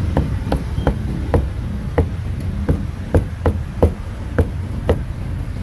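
Cleaver chopping roast meat on a thick round wooden chopping block: about a dozen sharp knocks, roughly two a second and slightly uneven.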